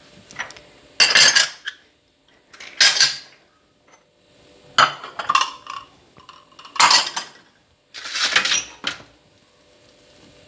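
Utensil scraping and clinking against a bowl while stirring thick semolina batter, in about five short bouts with pauses between.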